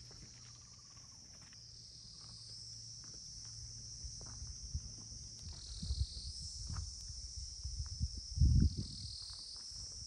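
A steady, high-pitched chorus of insects chirring on the hillside, its pitch dipping and rising a few times. Under it come scattered low thumps, with a brief louder low rumble about eight and a half seconds in.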